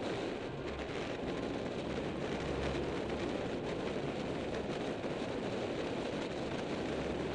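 Steady rush of wind over the microphone of a camera riding on a bicycle descending at speed, with tyre noise on the asphalt and low buffeting rumbles at times.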